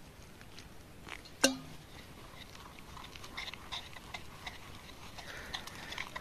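Gram-flour (besan) batter being mixed by hand in a glass bowl: soft wet squishing with many small scattered clicks. About a second and a half in, a single sharp clink with a brief ring, the loudest sound.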